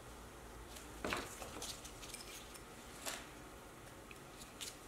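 Copper foil being picked and peeled off the edge of a stained glass piece by gloved fingers: faint scratchy crinkling and small clicks, with two louder crackles about a second in and about three seconds in.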